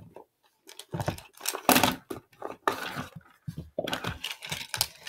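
Plastic sport-stacking cups clattering and clicking together in a run of quick knocks as they are handled and stacked, with the loudest knocks near the middle.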